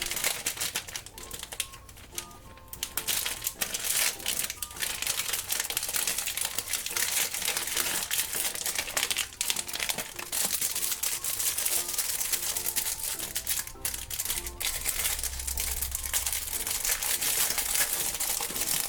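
Plastic blind-bag wrapper crinkling continuously as it is handled and opened, with background music underneath.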